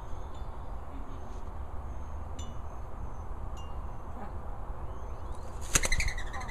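Adult mourning dove flushing off the nest with a sudden clap of wings about three-quarters of the way in, followed by a second of pulsing, ringing wing whistle. Before that, a few faint short bird chirps sound over a steady low rumble.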